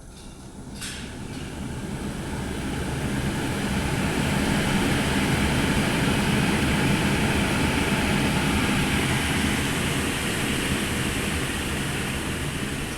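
SCM SE 12 SI 5 sliding table saw switched on with a click about a second in. Its motor runs up to speed over a few seconds, then runs steadily with a low hum.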